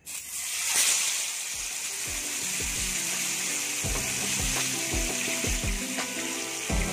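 Green-masala-marinated fish sizzling in hot coconut oil in a frying pan. The sizzle starts suddenly as the fish goes in, is loudest in the first second, then settles to a steady frying hiss. Background music with a beat comes in about a second and a half in.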